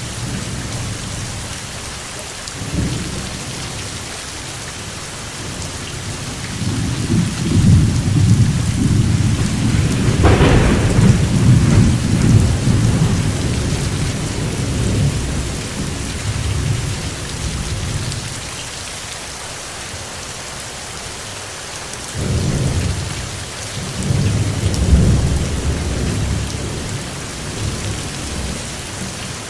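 Steady rain with thunder rolling twice: a long low rumble in the first half with a sharp crack early in it, and a shorter rumble near the end.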